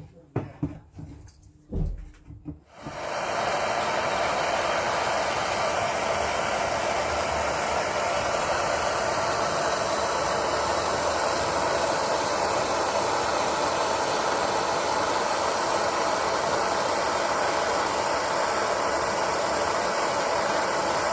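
After a few light clicks and knocks, a gas soldering torch comes on about three seconds in and burns with a steady hiss, heating the joint of a brass ring so the solder will flow.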